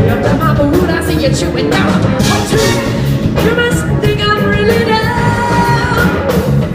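Live soul-rock band playing loudly, with drums, bass, horns and a singing voice.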